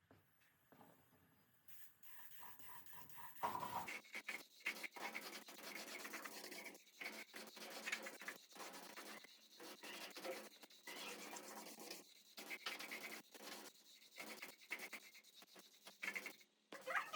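Hand scrubbing or rubbing on a grinder part, a run of short irregular strokes that starts about three and a half seconds in after near silence.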